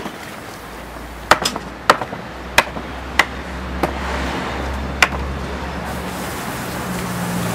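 About half a dozen sharp, irregularly spaced knocks: hammer blows setting a hot iron tyre onto a wooden cart wheel. About six seconds in, a steady hiss sets in as water is poured over the hot iron rim to cool and shrink it onto the wheel.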